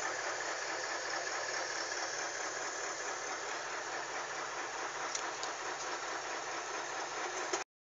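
Fuso truck's diesel engine running steadily, heard from inside the cab, with a low even throb.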